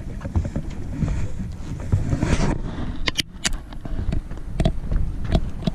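Wind rumbling on the camera's microphone on an open boat, with a few sharp clicks and knocks about three seconds in.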